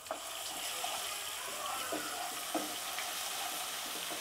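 Ginger-garlic paste sizzling in hot oil in a non-stick pan. The sizzle jumps up right at the start and stays steady, with a spatula stirring and now and then knocking on the pan.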